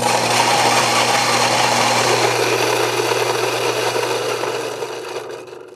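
Fellow Ode Gen 2 flat-burr coffee grinder's motor running with a steady hum and whir, then winding down near the end as it stops on its own. It seems quieter than the original Ode's running, which is put down to its tighter tolerances.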